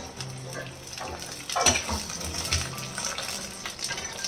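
Peeled garlic cloves tipped from a plastic plate into hot oil in a metal pan, the oil sizzling with a steady hiss, with a brief clatter of cloves and spoon against the pan about a second and a half in.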